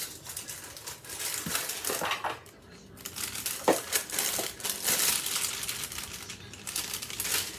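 Plastic inner bag of a boxed brownie mix crinkling as it is pulled from its cardboard box and shaken out over a mixing bowl, with a few sharp crackles and a short lull about two and a half seconds in.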